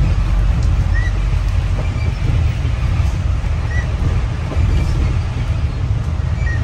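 Steady low rumble of vehicle noise, with a faint short chirp every few seconds.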